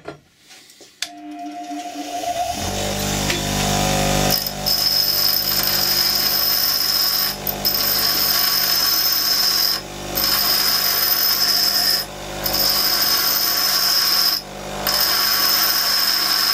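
A 6-inch bench grinder is switched on and runs up to speed. A carbide rod is then ground to a point on its wheel: a steady grinding hiss with a high whine over the motor hum, broken by short gaps about every two and a half seconds.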